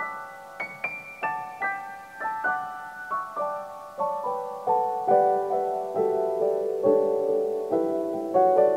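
Background piano music: a gentle melody of single struck notes, two or three a second, moving lower in pitch and settling on longer held notes in the second half.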